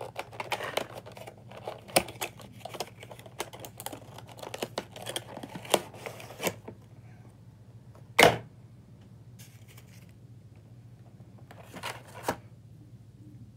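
Cardboard box of a die-cast model airliner being handled and opened: rustling, scraping and many sharp clicks of cardboard and packaging for the first several seconds, one loud sharp knock about eight seconds in, then a quieter stretch with a few clicks near the end.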